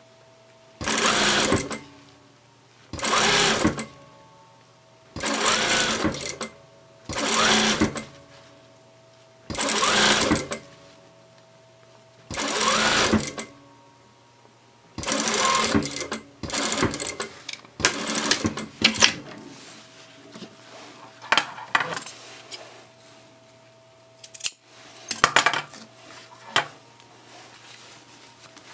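Sewing machine stitching fabric in short runs of about a second each, stopping and starting about ten times, then only brief bursts and single clicks near the end, over a faint steady hum.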